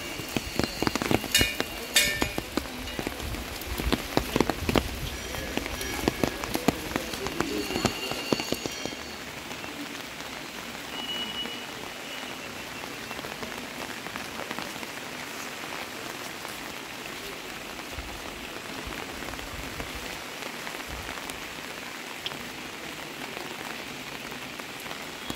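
Rain falling steadily on wet paving and an umbrella overhead. Many sharp drop taps come through for the first nine seconds or so, then it settles into an even hiss.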